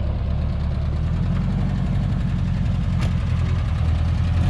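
An old car's engine running steadily at low throttle as the car crawls through a washed-out ditch on a rough gravel track, with a single sharp knock about three seconds in.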